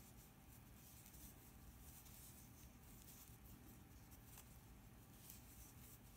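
Near silence, with faint soft rustling and scratching of yarn and a metal crochet hook as single crochet stitches are worked.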